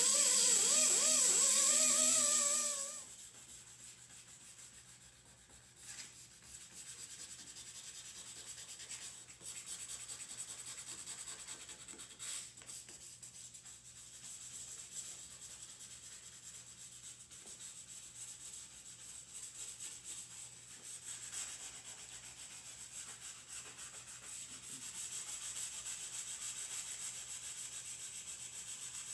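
Hand sanding and scrubbing on the rusted, pitted steel of a Toyota Land Cruiser 80 series tailgate's window pinch weld, a steady scratchy rubbing with irregular strokes. Background music plays over the start and stops about three seconds in.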